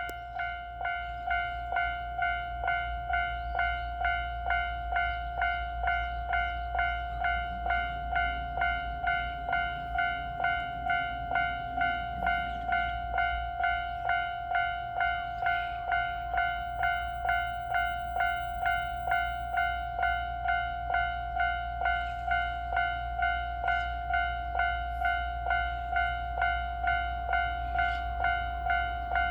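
Japanese railway level-crossing alarm ringing, a single pitched electronic 'kan-kan' note struck again about one and a half times a second, over a low steady rumble.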